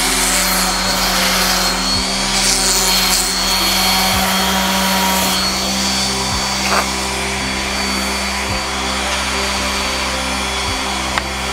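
DeWalt random orbital sander running steadily against a wooden cutting board, easing its sharp edges, with a steady motor hum and a high whine.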